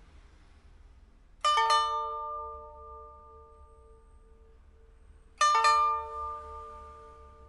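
Pipa with a freshly replaced soundboard and frets and steel and copper strings, plucked: two ringing chords about four seconds apart, each struck with a quick double stroke and left to ring out and fade.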